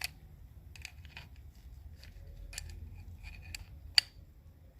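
Sharp, irregular metallic clicks of a wrench on a threaded air-compressor fitting as it is tightened down, about six in all, the loudest about four seconds in.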